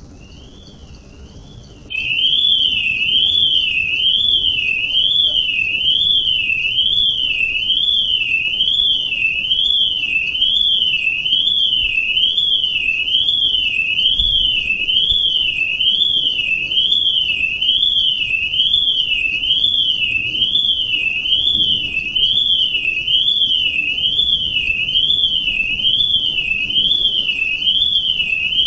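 Electronic alarm sounding a high warbling tone that sweeps up and down, a little over once a second. It starts faintly and becomes much louder about two seconds in.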